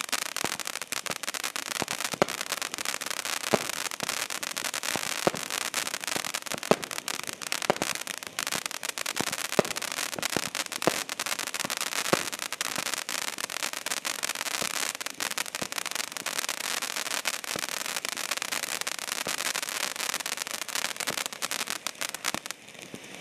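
Primed Pyrotechnics Krakatoa 500 g firework fountain burning: a steady rushing spray thick with fast crackling, with a sharper pop about every second and a half in the first half. The sound drops away abruptly near the end.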